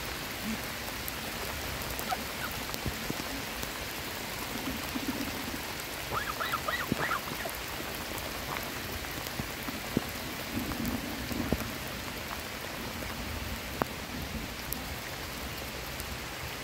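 Heavy rain falling steadily on pond water and pavement, a constant hiss. Canada geese give a short burst of calls about six or seven seconds in, and a few sharp ticks of drops stand out.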